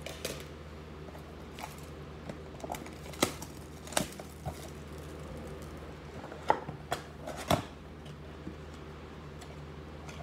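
Cardboard trading-card blaster box being opened by hand: scattered sharp clicks, taps and tearing as the flap is pried and pulled open, the loudest a few seconds in and again past the middle.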